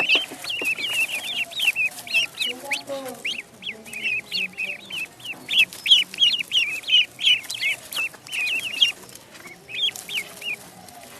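Ducklings peeping: many short, high chirps in quick succession, thinning briefly about nine seconds in, with a few fainter, lower calls beneath them.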